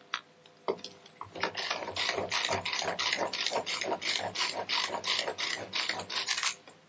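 Tupperware Turbo Chef pull-cord chopper worked with rapid, repeated pulls, about three a second, each pull a ratcheting whir as the blades crumble feta and goat cheese. The pulling starts about a second and a half in and stops just before the end.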